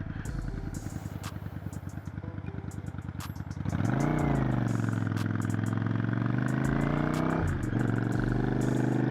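Motorcycle engine ticking over with a quick, even pulse. About three and a half seconds in it revs up and pulls away, the note climbing sharply, dipping, then rising slowly. Near the end the throttle closes and the note falls back.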